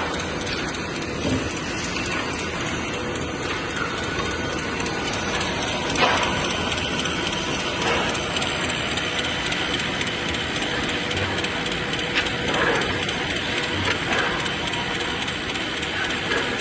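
CNC rip saw machine running with a steady mechanical noise and a faint whine, with a few sharp knocks and clatters scattered through it.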